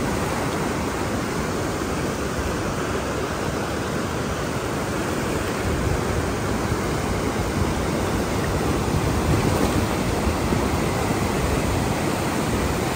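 Fast mountain river rushing over rocks in white-water rapids: a steady, unbroken rush of water.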